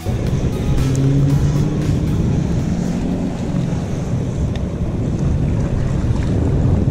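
Strong wind buffeting the microphone over water, with the low, steady drone of a motorboat's engine in the first half that fades after about three seconds.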